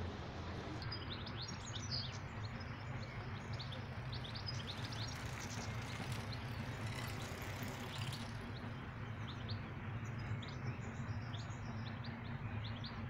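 Small songbirds chirping in many short, quick calls, over a steady low hum.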